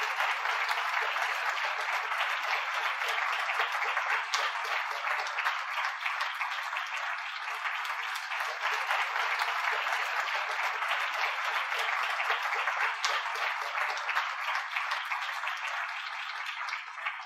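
Large audience applauding steadily after a talk, a dense, even clatter of many hands clapping.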